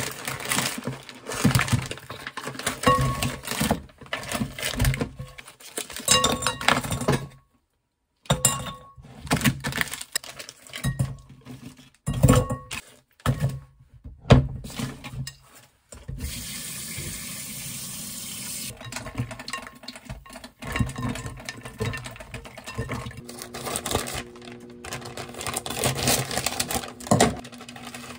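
Kitchen sounds in short cut-together clips: utensils, dishes and pans clattering and knocking. A steady hiss lasts a few seconds in the middle, and a low steady hum runs near the end.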